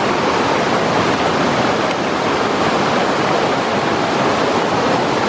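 River rapids rushing steadily: a constant, loud roar of fast-flowing shallow water over rocks.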